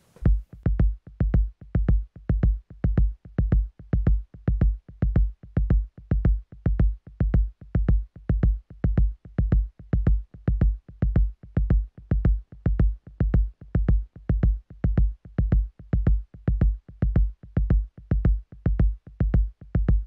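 Music: a lone electronic kick drum beating steadily about twice a second, each beat a deep thump with a short click on top.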